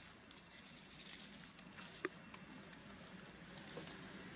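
Faint pattering and rustling of macaques shifting about on a tree branch, with a brief high chirp about a second and a half in and a sharp click about two seconds in.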